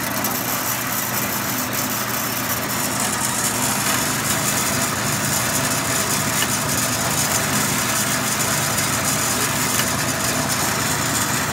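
Johnson Model J horizontal metal-cutting bandsaw running steadily with no load: its 110-volt motor and blade running, a little noisy.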